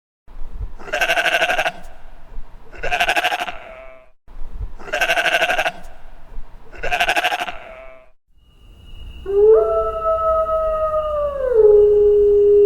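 Four quavering bleats, each about a second long and about two seconds apart, then a long howl that drops in pitch partway through and is still going at the end.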